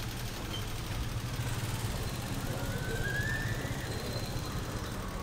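Street traffic: a steady low engine rumble, with a short rising high tone about two and a half seconds in.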